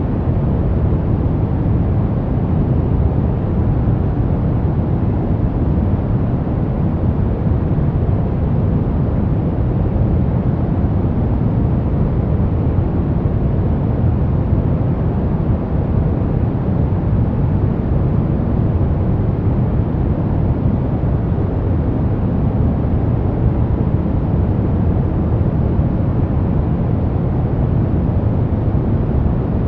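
Brown noise: a steady, deep rushing hiss, strongest in the low end, with no changes.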